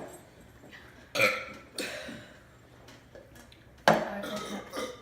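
People burping after gulping carbonated soda. A loud burp comes about a second in, a smaller one just after it, and a longer burp near the end.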